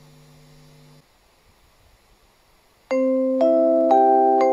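Station public-address chime over the concourse speakers: four ringing electronic bell-like notes about half a second apart, each sustaining under the next, the attention signal that comes before a train announcement. A faint low tone sounds for about the first second.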